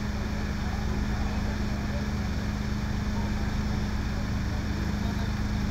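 Engine running steadily at idle: an even low drone with a constant hum that does not change.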